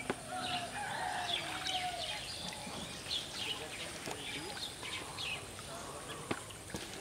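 Birds chirping and calling in many short notes, with a couple of sharp knocks in the second half.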